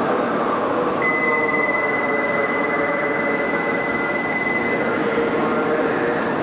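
E2-series Shinkansen trainset humming at a station platform, a steady rumble of rail noise. About a second in, a steady high-pitched tone sounds for about three and a half seconds, then stops.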